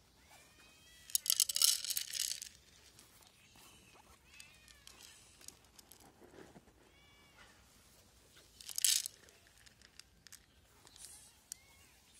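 A cat crunching dry kibble close up, loudest in two bursts of crackly chewing, one about a second in and one about nine seconds in. Several short meows come in between.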